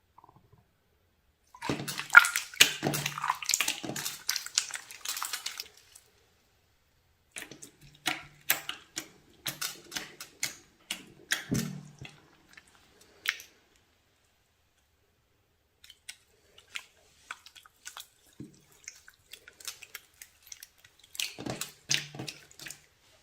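Wet, sticky slime being worked, making rapid clicking and popping sounds in three bursts with short pauses between.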